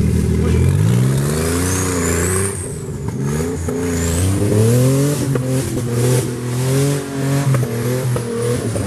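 Porsche 911 flat-six engine revved again and again, the revs climbing and dropping every second or so, as the car is driven and pushed out of the leaves where it is stuck off the road.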